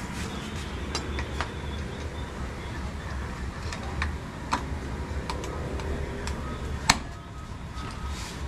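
Irregular light clicks and taps, with one sharp, louder click about seven seconds in, over a steady low hum.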